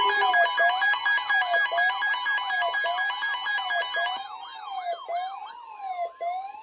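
Several NOAA weather radios sounding their alert alarms at once for a severe thunderstorm warning: a siren-like tone rising and falling about twice a second, layered over steady pulsing beeps that stop about four seconds in.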